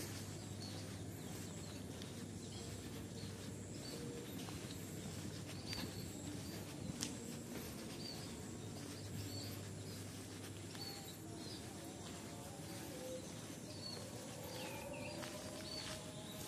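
Outdoor ambience: a steady low hum under short, high bird chirps that recur every second or two.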